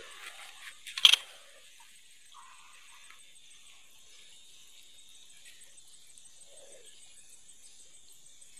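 Insects chirping faintly and steadily in a high, evenly pulsing tone over a quiet outdoor hiss, with one sharp click about a second in.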